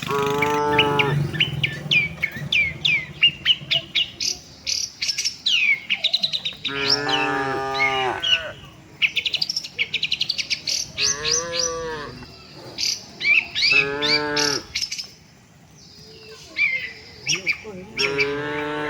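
Cattle mooing about five times, each call a second or so long, over continual rapid chirping of small birds.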